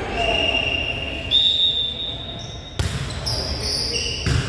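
Sneakers squeaking on a hardwood gym floor, with two sharp hits of a volleyball about three seconds in and near the end.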